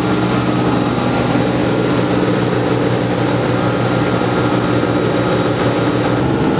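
Motorboat engine running steadily at speed, a constant drone with the rush of water and wind from the boat's wake.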